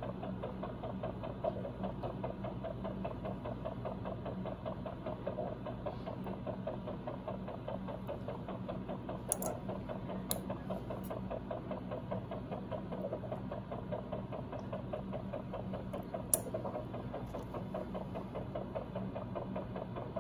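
Steady mechanical hum of operating-room equipment with a fast rhythmic pulsing to it. Three sharp clicks of steel surgical instruments, two about halfway through and one later, as a skin incision is sutured.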